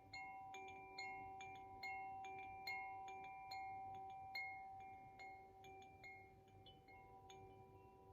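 Koshi chime in its Ignis tuning being swayed, its clapper striking the tuned rods in an irregular patter of bright ringing notes over a held, overlapping shimmer of tones. The strikes thin out after about six seconds and the ringing fades.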